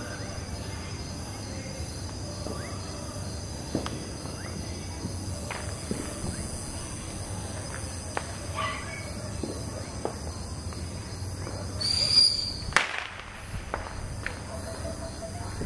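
Fireworks and firecrackers going off, faint sharp pops scattered throughout, over a steady high insect drone. About twelve seconds in comes a brief high whistle, then one loud sharp bang.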